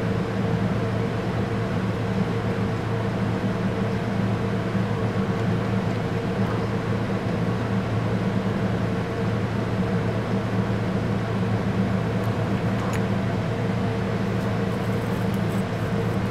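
Steady mechanical hum of a fan or motor running, with a few faint clicks in the last few seconds.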